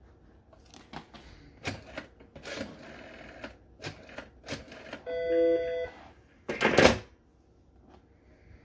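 Western Electric Model 500 rotary telephone being handled: a run of clicks and clatter from the hook switch and handset, a brief steady electronic tone of just under a second a little past the middle, then the handset clunks down onto the cradle, the loudest sound, near the end.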